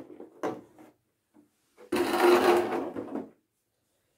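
Clear plastic packaging crinkling and rustling loudly for about a second and a half as it is handled and pushed aside, after a few small clicks in the first second.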